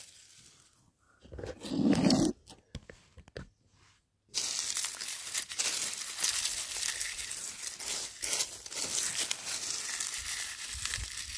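Dry fallen leaves crushed and crumbled by hand into garden soil: a dense crackling rustle from about four seconds in, after a short dull thump about two seconds in.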